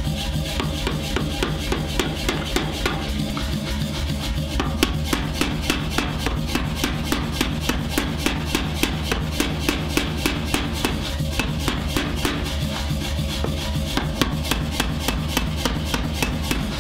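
Power hammer striking a red-hot steel bar in rapid, evenly spaced blows, flattening and drawing out one end of a forged pickaxe head, under background music with a steady beat.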